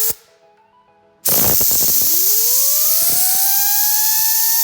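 Compressed-air blow gun hissing into an Audi Q7 / VW Touareg / Porsche Cayenne heater blower motor and spinning it up, with a whistling whine that climbs steadily in pitch as the rotor speeds up. One blast cuts off at the start and the motor quickly goes quiet. About a second later a second, longer blast begins and the whine rises again. The motor stops very quickly once the air cuts off: it has been blown clean of the dirt that made it creak and bind, but it is still dry, before oiling.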